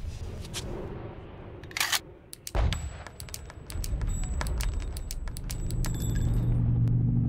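Metallic clacks and clicks of an AK-47 and its magazine being handled: two louder clanks about two seconds in, then a run of quick light clicks. A low musical drone swells in near the end.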